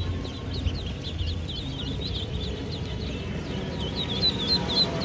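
A crate full of ducklings peeping, a dense chorus of short high calls, growing louder about four seconds in.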